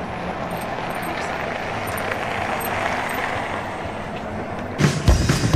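Steady outdoor rumble of vehicle traffic around a parking lot. Near the end, rock music with drums and bass comes in loudly over it.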